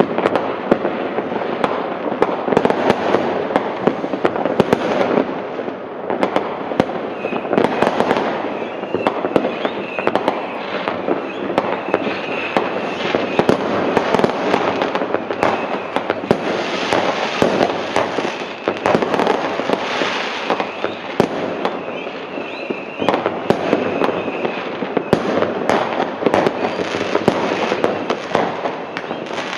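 Many fireworks rockets and firecrackers going off at once: a continuous barrage of bangs and crackling with no pause.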